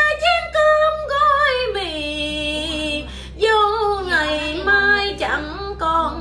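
A woman singing a Vietnamese ballad, holding long wavering notes that slide down in pitch between lines, with a short breath about three seconds in.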